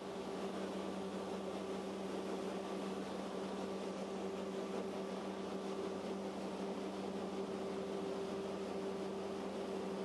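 Paddle-wheel boat under way: a steady low hum from its engine over the rushing, churning water of the paddle wheel and wake.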